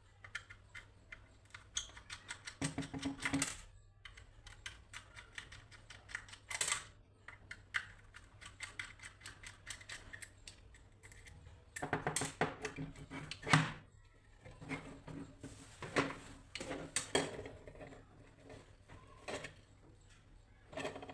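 Small plastic headphone parts being handled during a repair: irregular runs of quick clicks and taps with a few louder knocks, over a faint low steady hum.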